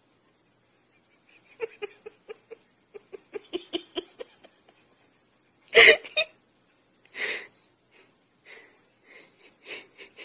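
A person laughing with a wheeze: quick breathy pulses of laughter, then a loud wheezing gasp about six seconds in, followed by softer wheezy breaths.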